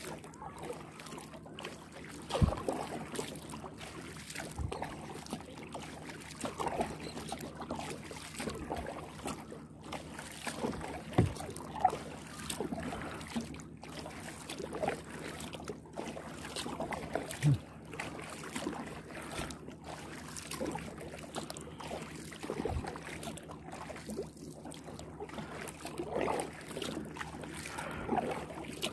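Kayak paddle strokes: the blade dipping and pulling through calm water, with drips and light splashes as it lifts out. A few short low knocks are scattered through, about 2, 5, 11, 17 and 23 seconds in.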